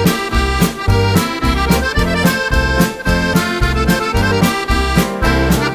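Accordion music, a polka: a lively treble melody over a steady alternating bass-note-and-chord accompaniment.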